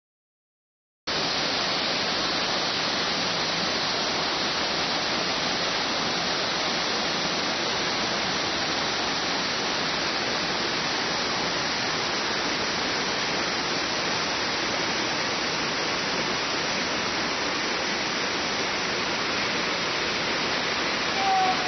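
Waterfall's steady rush of falling water, starting about a second in. Near the very end a rising pitched sound joins it.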